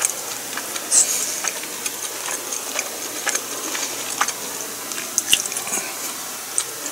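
Eating sounds close to the microphone: wet chewing and mouth noises with many small, irregular clicks, the sharpest about a second in and again near five seconds.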